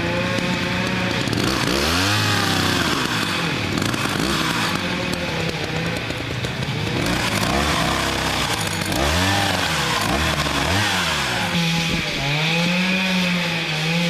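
Two-stroke chainsaw cutting into the base of a large tree trunk, the engine speed dipping and climbing again several times as the bar bites into the wood. Near the end the engine holds a steady pitch.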